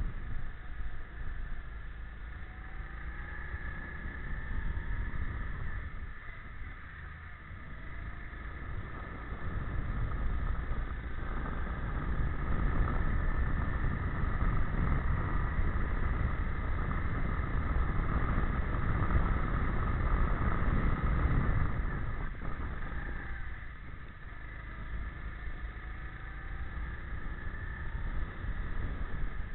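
Go-kart engine heard onboard at racing speed, its pitch rising and falling as the driver accelerates and lifts; it drops off twice, for corners a few seconds in and again near the end, and runs loudest along the straight in between. Wind rumble on the microphone lies under it.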